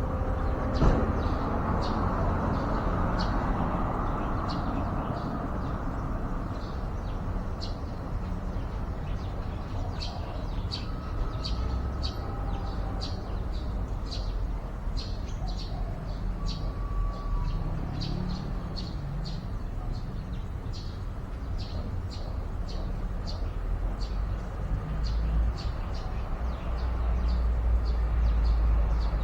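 Small bird chirping in a long series of short, high chirps, sparse at first, then two or three a second, over a steady low rumble.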